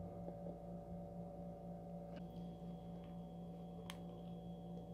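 Steady low electrical hum, with a faint click about two seconds in and a single crisp crack near the end as a macaron shell is bitten into.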